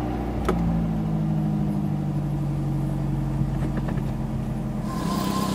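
A 1998 Toyota Celica's 2.2 L 5S-FE four-cylinder engine idling steadily. About five seconds in, a faint steady high squeal from the main drive belt joins in. The owner puts the squeal down to the belt; a misaligned pulley or worn pulley bearings could also cause it.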